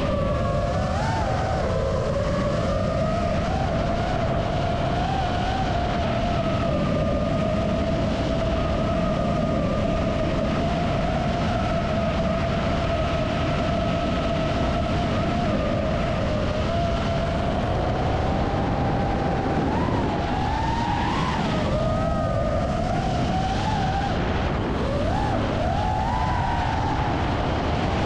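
Four iFlight Cyber Xing 2207.5 1777kv brushless motors and propellers of an FPV freestyle quadcopter in flight, a steady whine over a dense rushing noise. The pitch wavers with the throttle and swoops up sharply twice in the last third.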